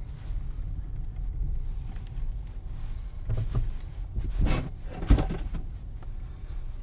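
A 2009 Ford Escape's front suspension clunking three times over a steady low road rumble, the last clunk the loudest. The knocks are like metal hitting metal, which the owner puts down to stiff aftermarket stabilizer links letting the sway bar hit the control arm.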